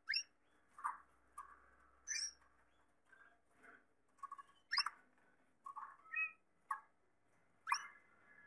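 Gloster canaries giving a string of short, separate chirps and calls, roughly one every half second to second, several with a sharp upward sweep, rather than a continuous song.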